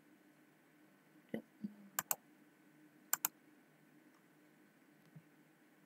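Computer mouse clicks: two quick double clicks about a second apart, each a press and release, with a couple of softer knocks just before.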